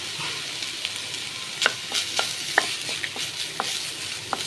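Rice being stirred into a sizzling spice and gooseberry mix in a pan: a steady frying sizzle, with a utensil clicking and scraping against the pan several times in the second half.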